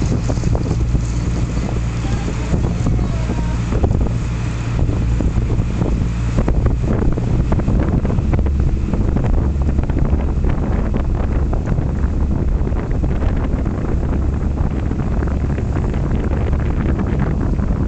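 Small harbour ferry under way: the steady low drone of its engine, with wind buffeting the microphone.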